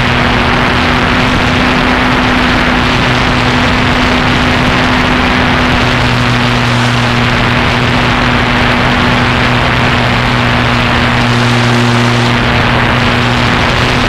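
A propeller aircraft's motor running steadily, heard from an onboard camera with heavy rushing wind noise. A lower hum in the motor sound is missing for the first few seconds and comes back about six seconds in.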